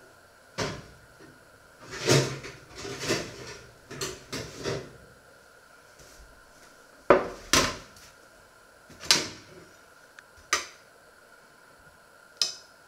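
A series of kitchen knocks and clatters as a metal baking tray is handled and set down on a wooden worktop, with scraping and clinks of metal tongs picking up croquettes from it. About eight separate sharp knocks, with a busier stretch of scrapes and knocks a couple of seconds in.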